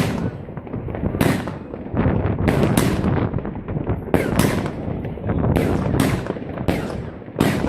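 New Year's Eve fireworks going off all around: about a dozen sharp cracks and bangs at irregular intervals over a continuous rumble of more distant explosions.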